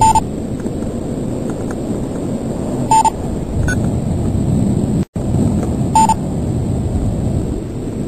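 Steady low rumble of wind buffeting the microphone of a high-altitude balloon's onboard camera, with a constant faint high whine and a short electronic beep about every three seconds. The sound cuts out completely for an instant about five seconds in.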